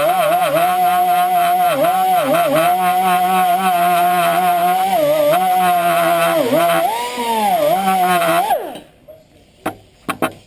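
Pneumatic air tool spinning a steel wire brush against a grime-clogged engine valve: a steady high whine that dips in pitch again and again as the brush is pressed onto the valve, then winds down and stops about eight and a half seconds in. A few sharp clicks follow near the end.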